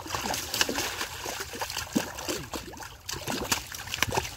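Shallow muddy water splashing and sloshing as hands grab at a catfish in the mud, with irregular sharp splats.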